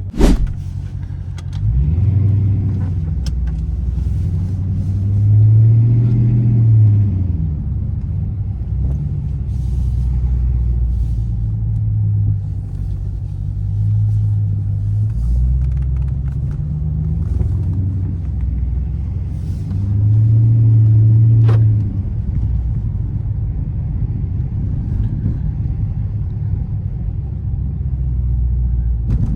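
Chrysler 300S's 5.7-litre Hemi V8 rumbling as the car drives off, getting louder and rising in pitch under acceleration a couple of times before settling back to a steady cruise. There is a sharp click right at the start.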